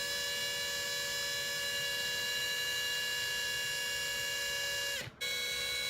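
Panasonic EY7441 14.4 V cordless drill driver running steadily, spinning a makeup brush, with a steady whine. About five seconds in it stops for a moment and starts again at a slightly different pitch.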